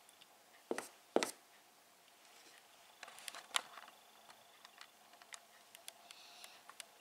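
Marker on a whiteboard: two sharp taps about a second in, then a run of faint light ticks and scrapes as it draws.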